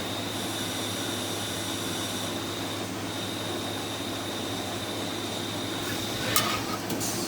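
Haas GT-10 gang-tool CNC lathe running: a steady machine hum with a thin high whine, then a few sharp clacks about six and seven seconds in.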